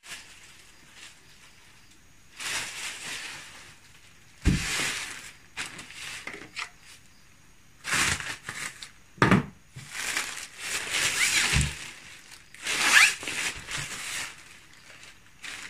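Black plastic courier mailer bag rustling and crinkling in irregular bursts as it is handled and snipped open with scissors, with a few dull knocks.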